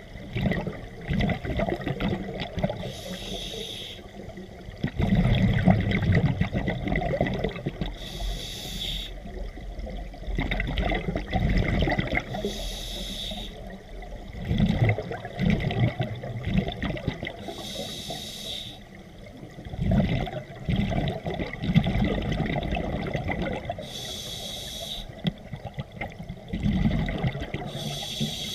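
Scuba diver breathing underwater through a regulator: a short hissing inhale about every four to five seconds, each followed by a long rumble of exhaled bubbles.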